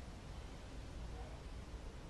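Faint steady hiss with a low rumble underneath and no distinct sounds: background noise.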